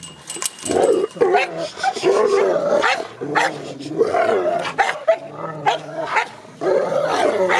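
Rottweiler barking over and over, loud calls coming about once a second.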